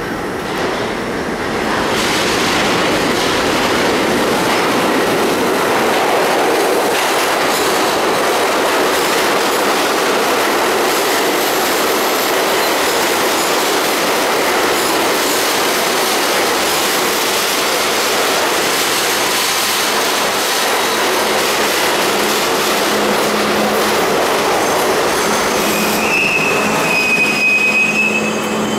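Budd-built R32 subway train pulling into the station from the tunnel and running along the platform, with steady wheel-on-rail noise growing loud about two seconds in. As the train slows, a low steady hum sets in, and a high squeal sounds briefly near the end.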